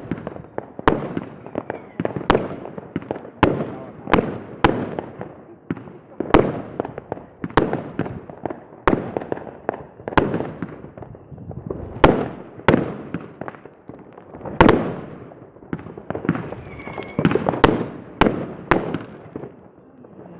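Fireworks going off: sharp bangs one after another at uneven intervals, about one or two a second, each followed by a rumbling, echoing tail.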